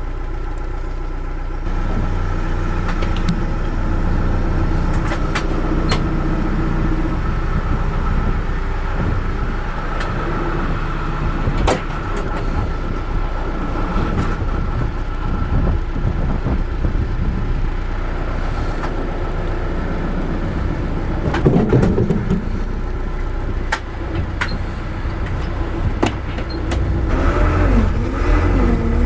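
Backhoe's diesel engine running, stepping up in level about two seconds in, with a few sharp clanks and short rises and falls in pitch near the end.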